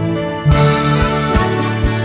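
Instrumental music. About half a second in, a fuller, louder accompaniment comes in with a steady beat under sustained chords.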